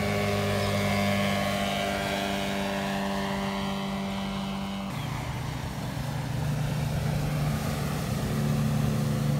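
Outboard motors running at speed as small boats pass close by, a steady engine drone. About five seconds in the sound cuts to a second boat's engine, which grows louder near the end.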